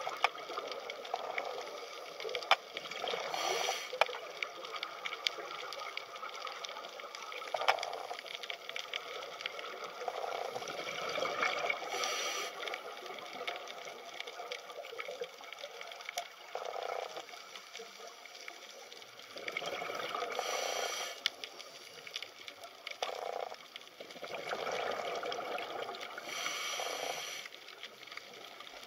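Underwater sound on the camera: a steady hiss full of fine crackling clicks, with a louder bubbling gush about every eight seconds.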